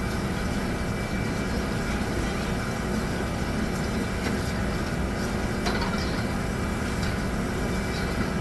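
Steady low mechanical hum and rumble with a thin steady high tone over it and a few faint light clicks.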